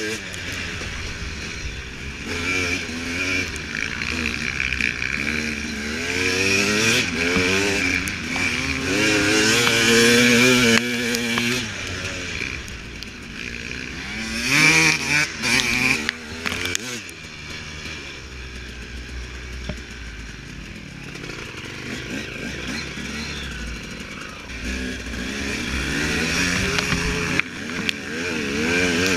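Husaberg 300 two-stroke dirt bike engine, heard from on the bike, revving up and down over and over as the throttle is opened and shut through the turns and straights of a muddy course.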